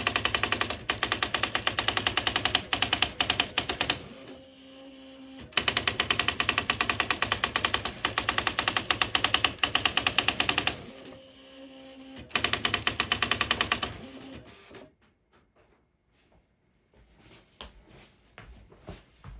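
Smith Corona SD 680 electric typewriter printing in three long runs of rapid, evenly spaced key strikes. A steady motor hum fills the short pauses between the runs. Near the end the machine goes quiet except for a few light clicks.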